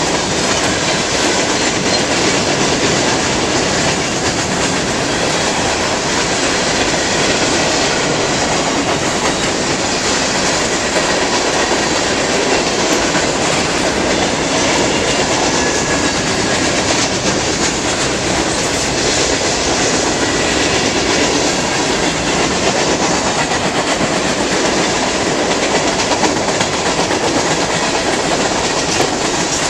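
A long train of many railroad cars rolling past steadily, its wheels clattering over the rails without a break.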